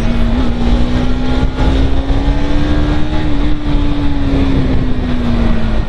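Bajaj Pulsar NS200 single-cylinder motorcycle engine running under way at a steady, fairly high speed. Its note rises slightly and then falls away near the end, with heavy wind rumble on the microphone.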